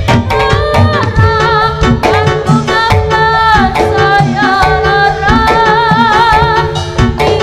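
Javanese gamelan music for a Sentherewe dance, with dense hand-drum (kendang) strokes under sustained metallic tones and a singer's wavering, ornamented melody.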